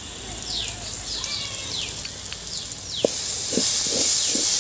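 Onion and tomato masala frying in a kadai, sizzling in hot oil while a ladle scrapes and stirs it, just after garam masala powder has gone in. The sizzle grows louder about three seconds in, with several ladle strokes against the pan.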